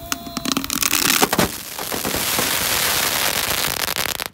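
A bucket packed with Roman candle charges goes off all at once: a quick run of sharp bangs in the first second and a half, then a loud continuous hissing and crackling as the mass of composition burns. It cuts off abruptly near the end.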